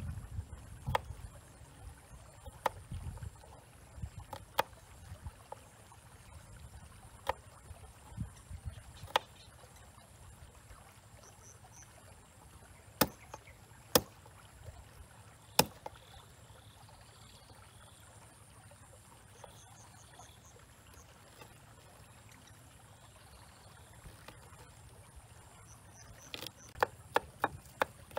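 Kitchen knife chopping on a wooden cutting board: scattered single knocks, then a quick run of chops near the end.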